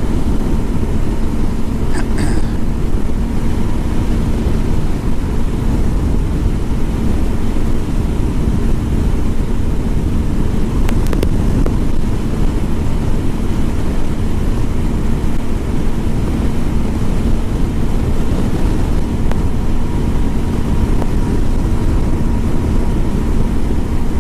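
Motorcycle running at a steady road speed, its engine a constant low rumble with a faint steady hum, mixed with wind rushing over the microphone.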